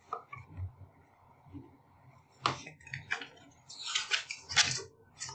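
A few short rustling and clicking handling noises: one about two and a half seconds in and a cluster between about four and five seconds.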